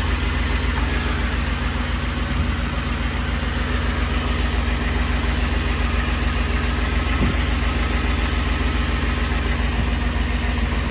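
2010 Ford F-150 engine idling steadily.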